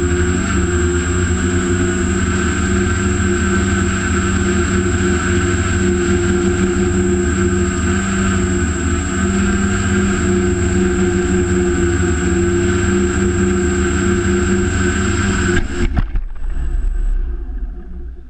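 Heavy-lift quadcopter's electric motors and propellers whirring steadily with a high whine, heard up close from the camera mounted on the craft. About sixteen seconds in, after it has come down onto the ground, the motors cut off abruptly with a click, leaving a fading rumble.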